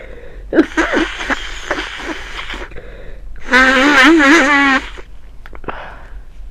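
Person with a head cold breathing noisily through a congested nose, then a loud voiced sound with a wavering pitch that lasts a little over a second, followed by a few small clicks and a short breath near the end.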